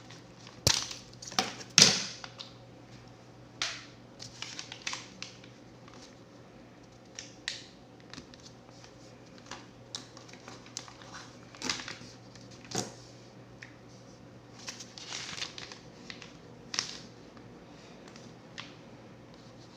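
Siamese coaxial cable being cut and stripped with a hand tool: irregular snips and clicks with bits of scraping and rustling, loudest about a second or two in.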